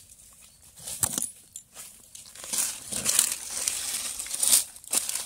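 Knife cutting through the stalks of jackfruits growing on the tree trunk: irregular scraping, crackling strokes, with a sharp click about a second in.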